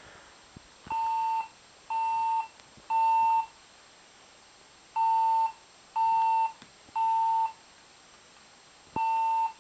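Fire alarm evacuation tone in the temporal-three pattern: three short, steady beeps about a second apart, a pause, three more, then the first beep of the next group just before the end.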